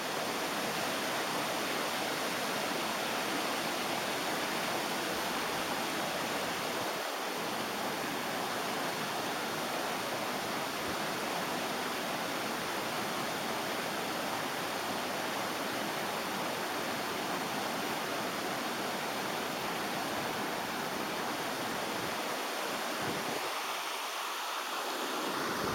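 River water rushing steadily over a small cascade.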